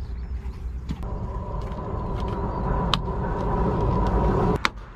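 Low rumble of a vehicle going by, swelling for a few seconds with a steady whine in it, then cutting off abruptly near the end, with a couple of sharp clicks over it.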